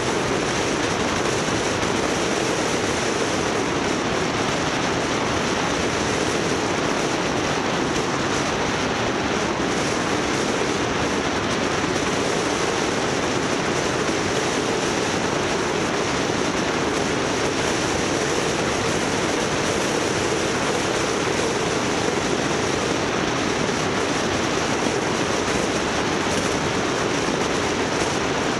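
Steady, unchanging noise of a moving vehicle on the road: tyre and wind rush with engine hum.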